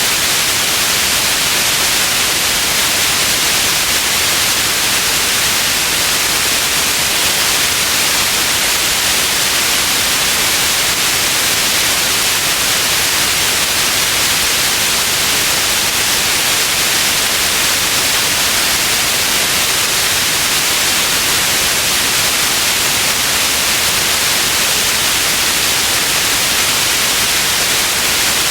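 Steady, unchanging white noise: an even hiss, brightest in the high frequencies.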